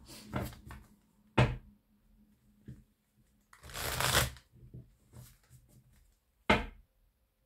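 A deck of oracle cards shuffled by hand: three louder brushing bursts, the longest in the middle, with soft card ticks between.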